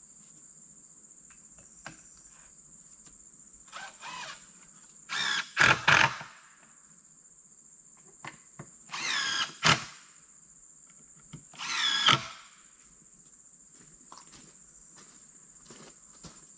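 Wooden spool of black poly water-line pipe, hung from a mini-excavator bucket, squeaking as it turns: three short high squeals a few seconds apart. A steady high insect drone runs underneath.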